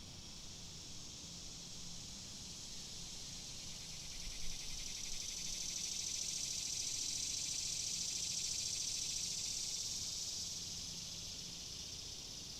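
Cicadas buzzing in a high, rapidly pulsing drone that swells louder a few seconds in and eases off slightly near the end. A brief low thump comes about four seconds in.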